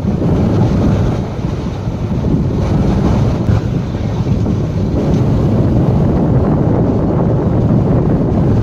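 Loud wind buffeting the microphone held out of a moving passenger train, a steady low rush with the train's running noise underneath.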